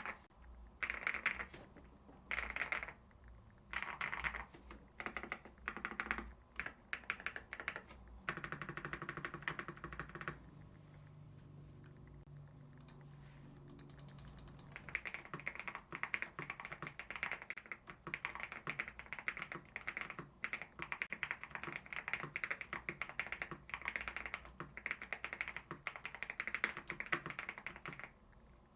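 Typing on a mechanical keyboard fitted with Akko Creamy switches: short bursts of keystrokes at first, a quieter lull around the middle, then fast, continuous typing through the second half.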